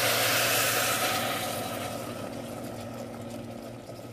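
Sauce poured into the hot stainless inner pot of an Instant Pot over sautéed beef and onions, sizzling loudest in the first second and then dying down to a softer sizzle. A steady low hum runs underneath.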